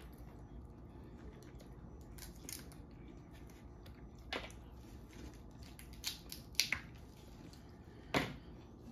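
Shells of boiled crawfish and crab legs cracking and snapping as they are peeled by hand: a scattering of short, sharp cracks, one of the loudest near the end.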